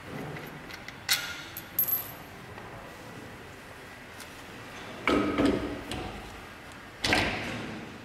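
Metal parts of a motorcycle wheel-balancer adapter clinking and clanking as it is handled and fitted: two sharp ringing clinks about a second in, then two heavier clanks, about five and about seven seconds in.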